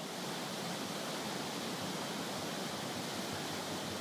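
A stream in flood rushing over turbulent rapids, a steady, even rush of water.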